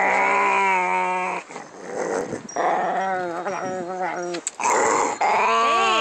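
Small dog making long, drawn-out pitched growls, odd whining noises rather than a plain low growl. Three of them, each lasting one to two seconds, with short gaps between.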